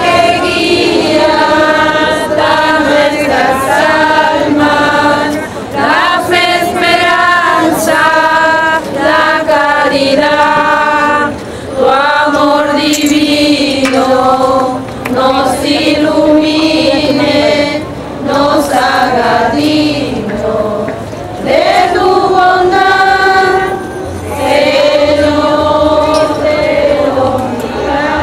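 A group of women singing a procession hymn together, in sung phrases with short breaks between them.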